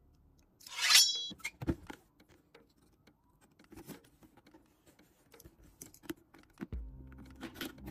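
Handling of a cardboard figure box with a plastic window: a loud, brief rasp about a second in, then scattered taps, clicks and knocks as the box is picked up and turned. Background music comes in near the end.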